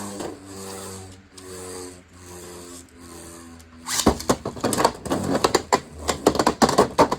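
Spinning Beyblade tops, a 3D-printed bey against a Beyblade X bey, whirring in a plastic stadium with a humming tone that shifts in pitch. From about four seconds in they clash in a rapid run of sharp clicks and knocks.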